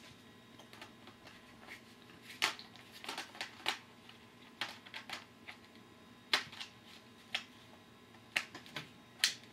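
About a dozen sharp plastic clicks and taps, irregularly spaced, as the battery pack is fitted into an Asus Eee PC netbook.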